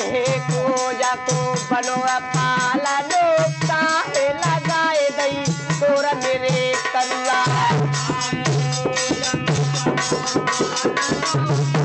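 Instrumental folk bhajan music: a harmonium and a bowed folk fiddle carry a sliding, wavering melody over a steady dholak rhythm. The dholak's low bass strokes drop out for under a second a little after halfway, then return.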